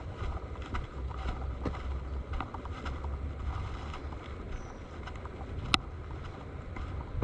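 Wind buffeting the microphone with a steady low rumble, with scattered light clicks and one sharper click about three-quarters of the way through.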